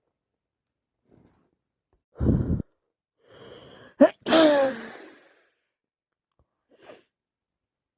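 A woman with a cold sneezing once. There is a short sharp breath about two seconds in, then a gasping inhale that builds up and breaks into a sneeze with a falling voiced 'choo' about four seconds in. A faint sniff comes near the end.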